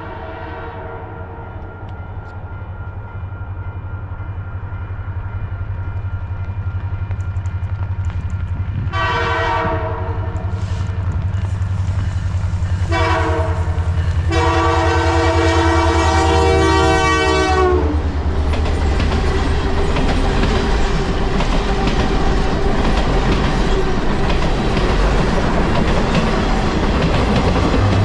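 CPKC Holiday Train's diesel locomotive approaching with its engine rumble growing louder, sounding its air horn three times, the last blast long and dropping in pitch as the locomotive passes close by. The cars then roll past with steady wheel noise and clickety-clack on the rails.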